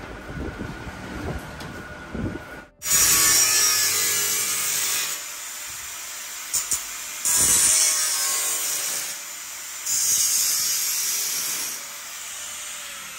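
Angle grinder running on steel, bitten into the metal in three loud, hissing bursts of a second or two each, and running more quietly in between. Before the first burst there is a low rumble with a few knocks, which stops abruptly.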